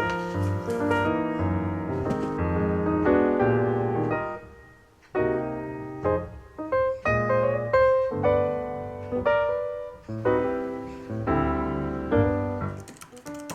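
Piano music, a run of melody over bass notes that briefly drops away about five seconds in.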